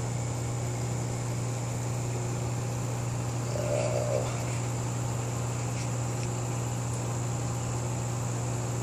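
Steady low hum with an even hiss from running aquarium equipment.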